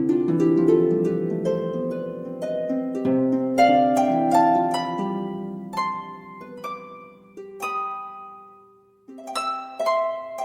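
Gentle instrumental background music: pitched notes and chords that start sharply and ring out, dying away to a brief lull about nine seconds in before new notes begin.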